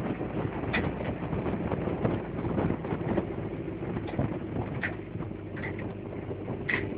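Moving vehicle travelling on a rural road: steady road and engine noise with wind, and a few short high-pitched chirps about a second in and again over the last two seconds.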